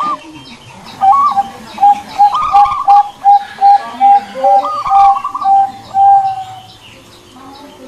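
Zebra dove (perkutut) cooing: a higher opening note about a second in, then a long run of short, even coos at about two or three a second, broken twice by higher rolling notes, trailing off about six seconds in.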